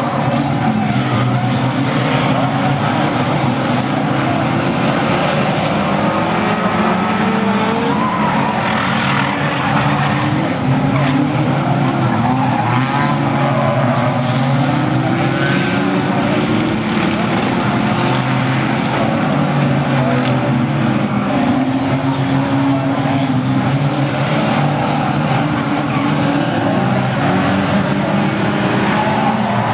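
Several banger racing cars' engines running and revving together, overlapping notes rising and falling as the cars race and jostle on a shale track, with tyres skidding.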